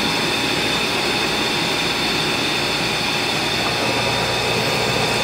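Air blower for a hatchery tank's aeration ring running steadily, a constant whir with a faint fixed whine.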